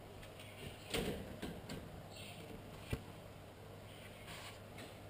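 Quiet room with a steady low hum, faint rustling, a soft knock about a second in and a short click near three seconds.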